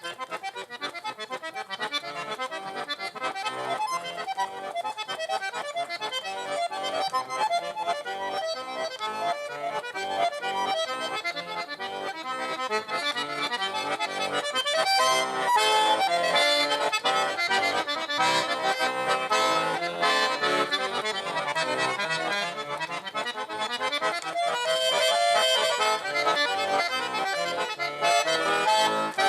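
Accordion playing a Russian folk tune in quick runs of notes, louder from about halfway through.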